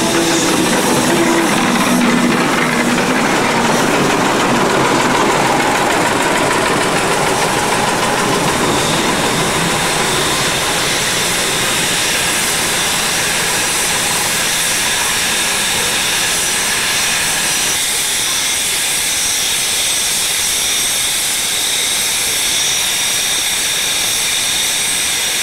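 Steam locomotive at a station giving off a steady, loud hiss of escaping steam. In the first few seconds a train of goods wagons rolls past.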